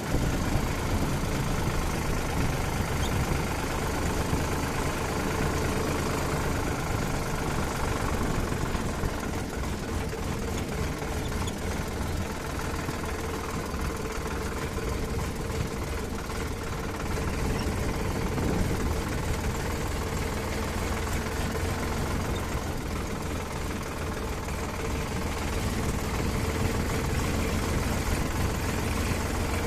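Heavy vehicle engine running steadily, with no revving.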